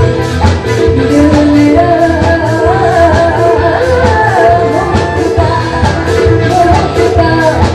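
A woman singing a melody into a microphone over a live band with drums keeping a steady beat, all loud through the stage PA.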